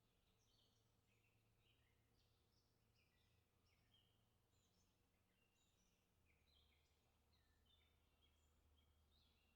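Faint chorus of songbirds: many short chirps and whistles from several birds overlapping, with no break.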